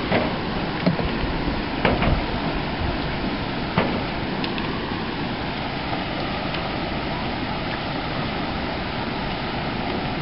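Steady rushing of rough water, with a few sharp knocks or splashes.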